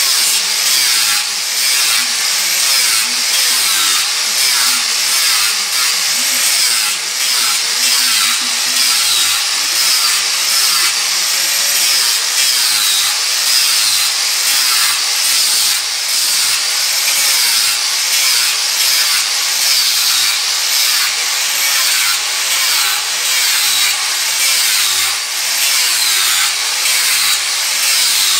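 Angle grinder fitted with a sanding disc running continuously while it grinds and sands a wooden spoon blank. The motor's whine repeatedly dips and rises in pitch as the disc is pressed into the wood and eased off.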